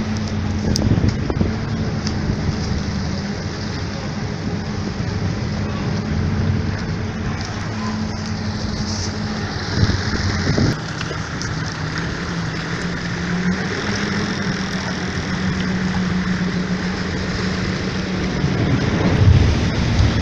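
Motorboat engine running steadily under way over a constant rush of water and wind. The engine note drops a little about halfway through.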